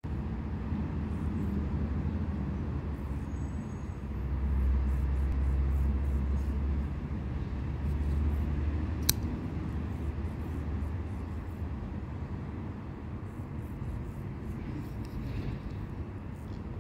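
Steady low outdoor rumble that swells about four seconds in and eases off after seven seconds, with one sharp click about nine seconds in.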